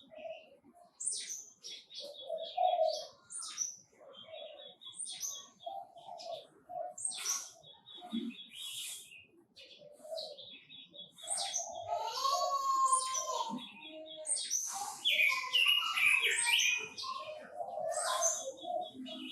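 Red-billed leiothrix male and female singing and calling: repeated short high chirps and quick trilled runs, with a longer fast warbling song phrase about twelve seconds in.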